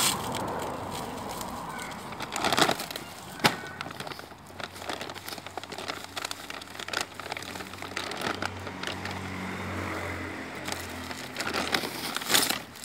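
Woven plastic shipping sack rustling and crackling as it is handled and worked down off a large bag of dry dog food, with a few sharp crinkles, the loudest near the start and near the end.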